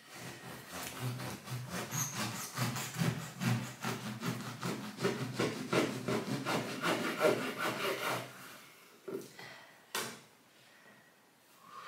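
Bread knife sawing through a crusty spelt sourdough loaf in many quick back-and-forth strokes, stopping about eight seconds in. A single sharp knock follows near the end.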